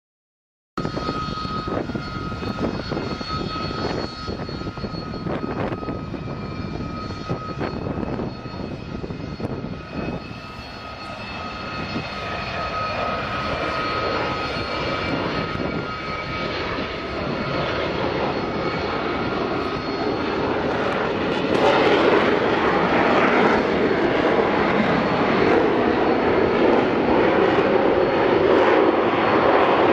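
Harrier jump jet's Rolls-Royce Pegasus engine running as the jet comes in to land: a rushing jet noise with steady high whining tones over it. It grows louder through the second half, most loudly in the last third.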